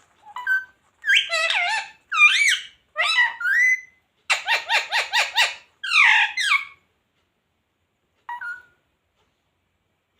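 Indian ringneck parrot calling in a string of high, warbling phrases, with a quick run of about seven repeated notes a second in the middle and one short call near the end.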